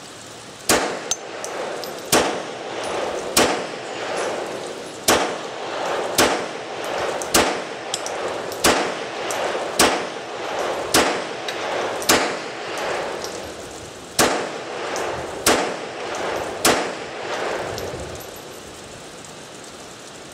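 CZ-82 semi-automatic pistol fired thirteen times in slow, steady succession, about one shot a second with a longer pause before the last three, each shot followed by echo. It is loaded with undersized .380 ACP rounds instead of its proper 9x18 Makarov, yet fires and cycles every round.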